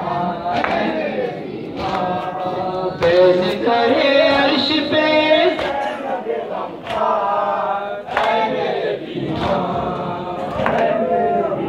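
A male reciter singing a nauha lament into a microphone while a group of men chant along. Sharp chest-beating (matam) slaps land in time, about one every second and a quarter.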